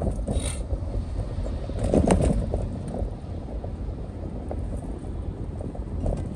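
Steady low rumble of a vehicle driving along a city road in traffic, with a brief louder swell about two seconds in.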